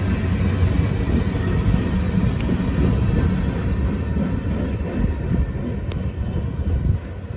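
Train passing with a steady low rumble of rolling wheels and cars, dropping off near the end.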